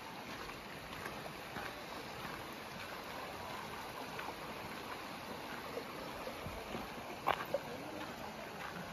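Steady rushing noise like flowing stream water, with two short sharp knocks about seven seconds in.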